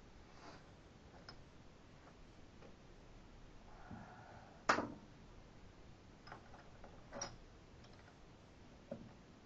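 A few scattered clicks and knocks of small metal transmission parts being handled, with one sharper clack about halfway through. A brief squeak comes just before that clack.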